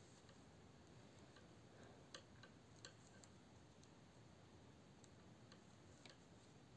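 Near silence with faint, irregular clicks of knitting needles as plain stitches are worked.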